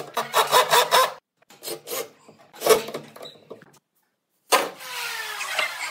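Hand work on wood: quick, repeated rasping, rubbing strokes, in short stretches that cut off abruptly.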